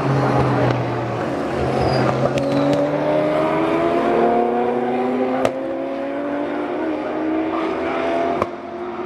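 GT3 race car engines at speed. One note falls away as a car brakes into the corner, then another climbs steadily in pitch as a car accelerates away. Two sharp cracks come, one a little past halfway and one near the end.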